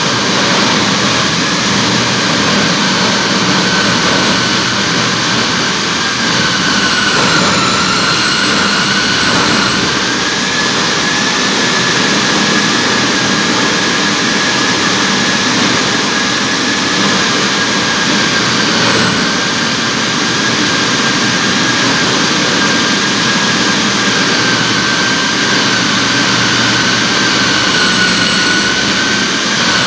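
Electric diamond core drill running steadily as it cuts through concrete. Its high whine sags briefly in pitch three times as the bit takes load.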